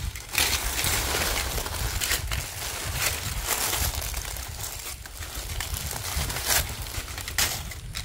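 Dry fallen leaves crackling and rustling in irregular short bursts as a metal detector's coil is swept over and brushes through them.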